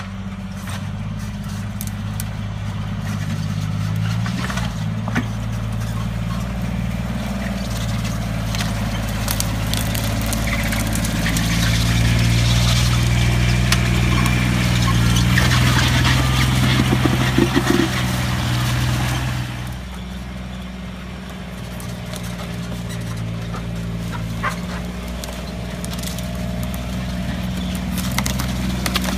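Polaris Ranger Diesel UTV on rubber tracks driving: a steady diesel engine drone with clicks and rattles from the tracks. It grows louder as the machine passes close by about halfway through, then drops off suddenly a little later.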